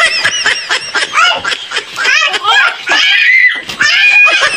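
Children laughing loudly, high-pitched and broken into short peals.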